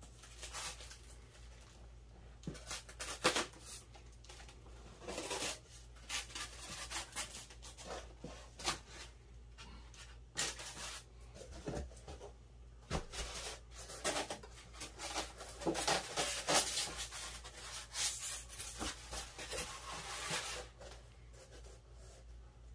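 Irregular rubbing, scraping and tearing of packing material, with tape and styrofoam being cut and pulled away from a boxed guitar.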